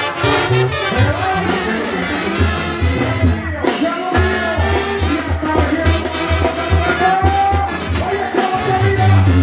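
Mexican banda brass band music, with a pulsing low bass line under horn melodies.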